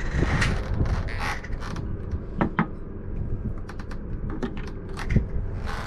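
Wind buffeting the microphone, with a few sharp clicks and knocks about two and a half seconds in and again near five seconds.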